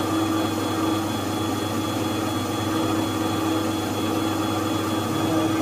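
Metal lathe running with a CBN (elbor) cutter turning a spinning steel workpiece: a steady machine hum with a fixed mid-pitched whine and a faint high whistle, unchanged throughout.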